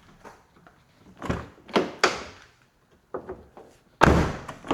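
2006 Scion tC car door being shut: a few knocks and small clicks from the door and its latch, then a heavy thud about four seconds in.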